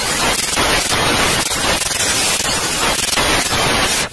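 Loud TV-static hiss, a white-noise sound effect with faint crackles, cutting off suddenly near the end.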